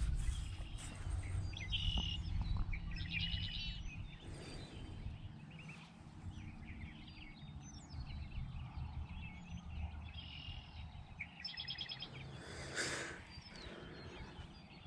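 Wild songbirds singing and chirping, with a short trilled phrase repeated several times, over a low steady rumble.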